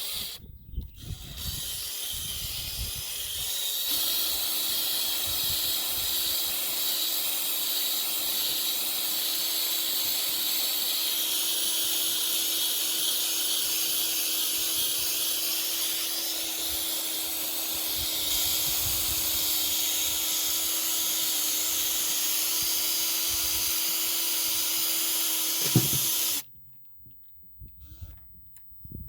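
Drill with a small polishing-pad attachment running steadily, compounding oxidized fiberglass gelcoat: an even motor hum under a loud hiss of the pad on the hull. It comes up to a steady speed a few seconds in and cuts off suddenly near the end.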